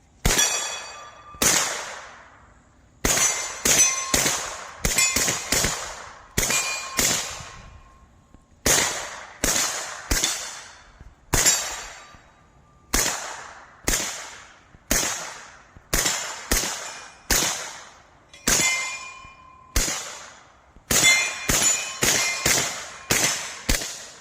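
Suppressed CMMG Banshee .40 calibre carbine firing about thirty shots at an uneven pace, each muffled report followed by a steel target ringing with a clear pitched tone. Quicker strings of shots come a few seconds in and again near the end.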